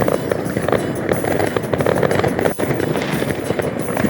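New Year's fireworks going off all around in a dense barrage: many overlapping bangs and crackles with no let-up, apart from a brief lull about two and a half seconds in.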